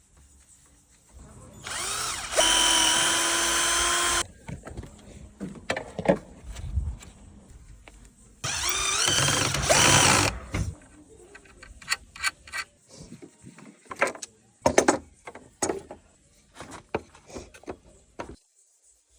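Electric drill running in two bursts of about two seconds each, its pitch climbing as it spins up, during work on wooden parts. Between and after the bursts come scattered short knocks and clicks of wood being handled.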